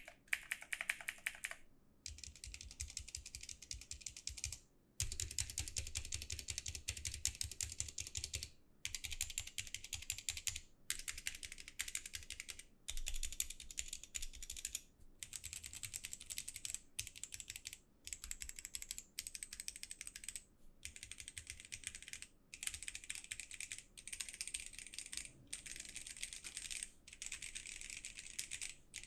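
Typing on a Gamakay K66 mechanical keyboard fitted with Redragon Scarab pudding keycaps: a dense clatter of key clicks in runs of a second or two, with brief pauses between.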